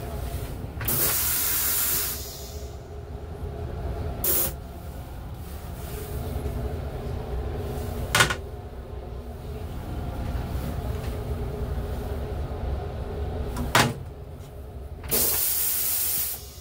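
Long Island Rail Road M7 car's toilet flushing with a hiss lasting about a second, about a second in and again near the end. Between them come sharp clacks of the toilet lid and seat, over the steady rumble of the moving train.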